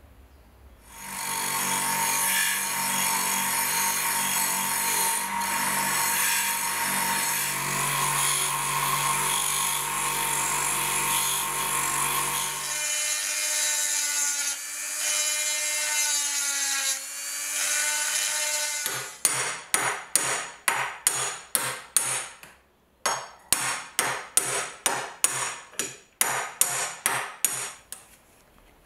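High-speed rotary tool with a conical abrasive stone grinding rust off a steel knife guard, starting about a second in with a steady whine. The pitch drops and wavers as the stone works under load, then for the last third the grinding comes in short strokes, about three a second.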